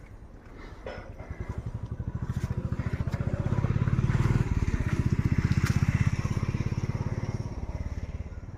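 An engine with a rapid, even beat grows louder to a peak about halfway through, then fades, like a motor vehicle passing.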